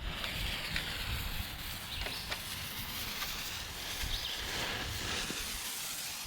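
Lit smoke bomb hissing steadily, its fuse and smoke charge burning, with a few faint ticks about two seconds in.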